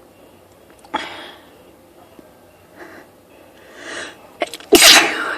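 A woman sniffing sharply and breathing in, then one loud sneeze near the end, part of a sneezing fit set off by a spritz of perfume.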